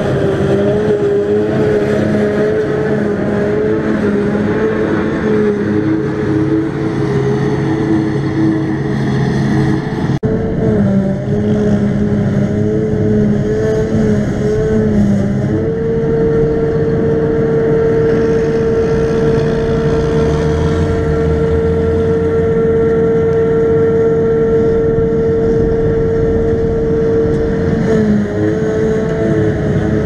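Claas Jaguar 840 forage harvester running at work chopping grass silage, with tractor engines alongside: a loud steady machine drone with a strong held whining tone. There is an abrupt break about ten seconds in. From about halfway the tone becomes steadier and louder, then wavers again near the end.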